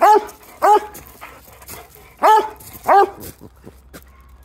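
Tricolour hound barking: four loud barks, a pair, a short pause, then another pair, before it falls quiet about three seconds in.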